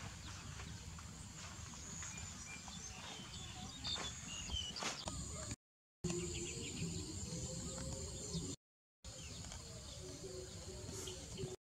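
Outdoor rural background: small birds chirping and a steady high insect drone over a low rumble, broken three times by short gaps of dead silence.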